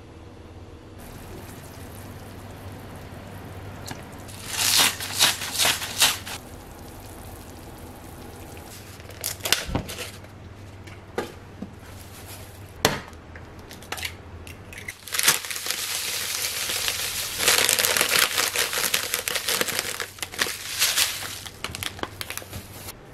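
Kitchen food-preparation noises: bursts of crinkling and rustling, with a few sharp knocks in between.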